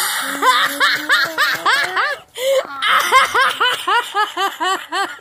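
A child laughing hard in rapid, high-pitched "ha" bursts, about four or five a second, with a short break a little past two seconds in.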